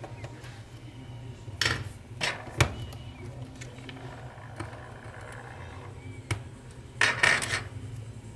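Small metal repair tools and phone parts clinking and clattering against a work surface in a few short bursts, the longest near the end, over a steady low hum.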